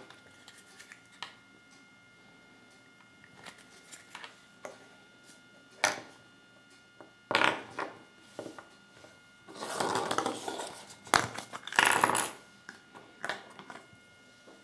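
Small plastic toy figures being handled and fitted together on a wooden table: scattered light clicks and taps, with a few short louder rustling bursts in the second half.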